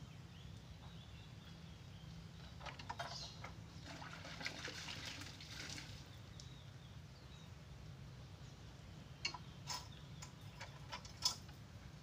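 Wet laundry being handled and hung on a wire clothesline: a faint wet rustling about three to six seconds in, then several sharp clicks near the end as hangers meet the line, over a low steady hum.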